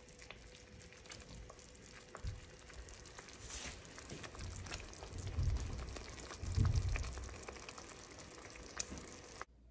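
Marinara sauce simmering in a pan on a gas burner, a steady sizzle with many small crackling pops. There are two low rumbles about halfway through.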